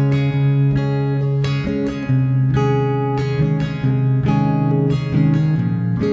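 Background music: an acoustic guitar playing plucked chords, with the notes changing every half second or so.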